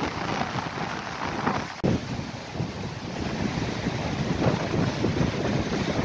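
Sea waves washing onto a rocky shore, with wind rumbling on the microphone; the noise swells and surges about two seconds in.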